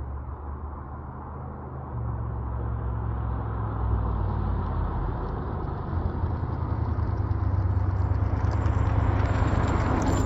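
A Cadillac 4.9 V8 in a 1985 Pontiac Fiero GT accelerating at full throttle from a standing start. The engine note steps up about two seconds in, then grows steadily louder as the car approaches and passes close by near the end.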